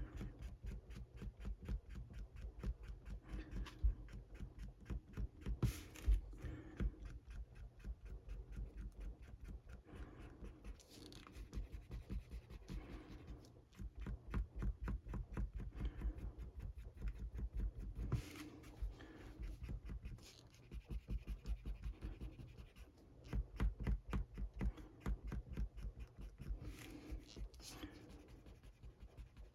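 An eraser scrubbing quickly back and forth over a comic book's paper cover, in rapid rubbing strokes with a few short pauses, to dry-clean grime off it.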